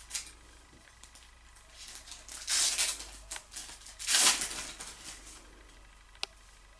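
Trading card pack wrapper being torn open by hand: two crinkling, tearing rips about a second and a half apart, the second the loudest, with small crackles and a sharp click between and after.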